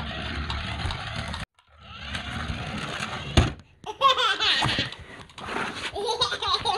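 A toy remote-control car whirring as it drives, with a sharp knock about three and a half seconds in. From about four seconds in, a young child laughs and squeals.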